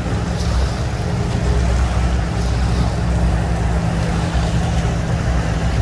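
Pontoon boat's outboard motor running under way as the boat pulls away, a steady low hum.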